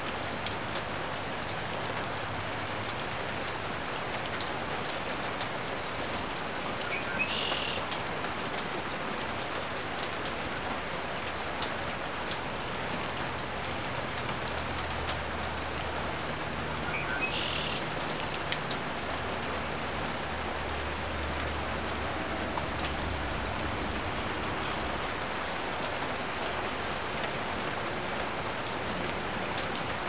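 Steady rain falling, with two brief high bird calls, one about seven seconds in and one about ten seconds later.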